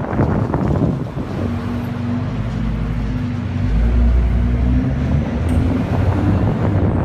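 Nissan GT-R running with rushing road and wind noise. From about a second and a half in, a steady low drone joins it and holds until near the end. This drone is the noise issue the owner is asking about.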